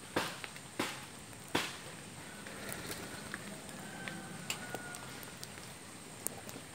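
Three sharp knocks or cracks about two-thirds of a second apart in the first second and a half. After them comes a low steady hiss with scattered faint ticks and a few faint distant bird chirps.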